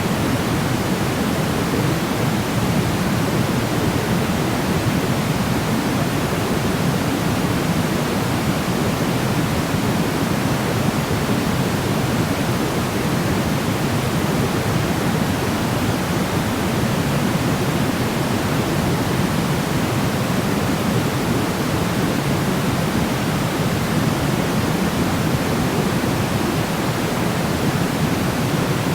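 Steady white noise for sleep: an even, unchanging hiss with no events, fuller in the low range than the high.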